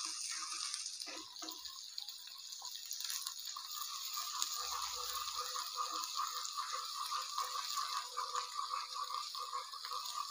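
Chopped drumsticks, bottle gourd and ivy gourd sizzling steadily as they sauté in hot oil in a kadai, with the irregular scrape and clack of a wooden spatula stirring them.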